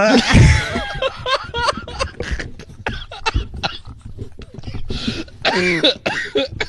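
A person making rapid mouth sound effects: a quick run of clicks, snaps and cough-like bursts mixed with short wavering squeaky vocal noises, with one longer wobbling vocal sound near the end.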